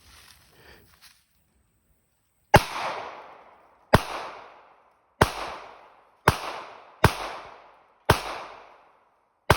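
Glock 22 .40 S&W pistol fired seven times at a slow, uneven pace, about a second between shots, each shot a sharp crack followed by a trailing echo.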